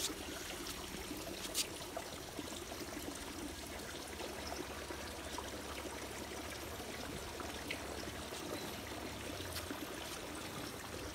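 Steady trickle of running water in a fish pond, with one faint click about one and a half seconds in.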